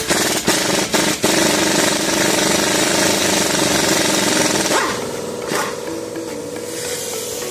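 Air impact wrench hammering: three or four short bursts, then a steady run of about four seconds that cuts off. Background music goes on quietly underneath.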